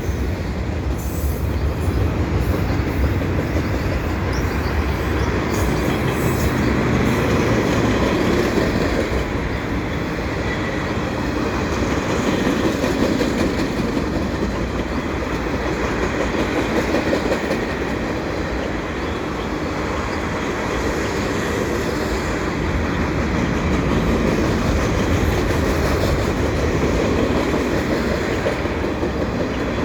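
Canadian National mixed freight train's cars, many of them gondolas, rolling steadily past: a continuous rumble of steel wheels on rail.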